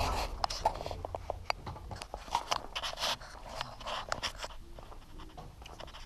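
Close, irregular rustling with many scattered clicks and scrapes from a moving body-worn camera and the clothing around it. The clicks are busiest in the first four seconds and thin out near the end.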